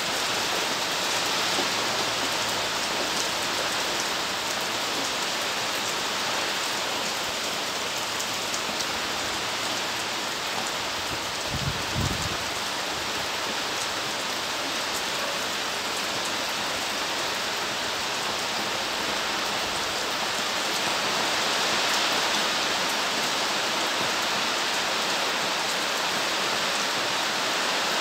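Steady rain falling, an even hiss of many drops. There is one brief low thump about twelve seconds in.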